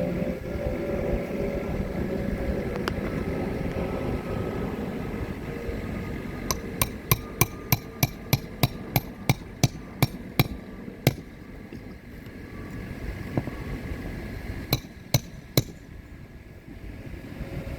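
Hammer driving roofing nails to fasten a replacement roof shingle: a quick run of about fifteen sharp blows, roughly three a second, then three more blows a few seconds later.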